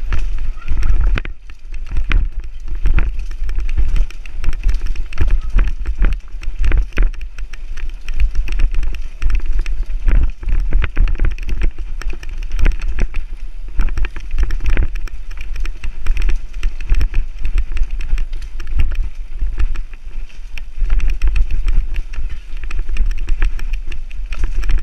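Mountain bike being ridden along a dirt singletrack, heard from a camera on the bike or rider: a constant low wind rumble on the microphone with frequent knocks and rattles as the bike bounces over the trail.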